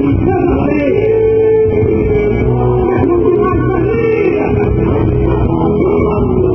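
Loud music with a singing voice, the dance music of a quadrilha junina performance, playing without a break.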